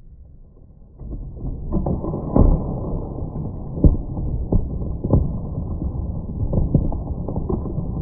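Twin-shaft shredder crushing full plastic soda bottles, heard as a deep, muffled rumble with many irregular heavy thuds and cracks as the bottles burst. It starts about a second in.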